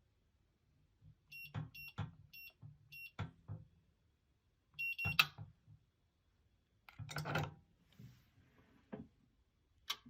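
Electronic keypad of an Amazon Basics safe: four short beeps as code keys are pressed, then a longer beep. A mechanical rattle and clunk follow about 7 seconds in, the lock and bolts being worked, with a couple of knocks near the end.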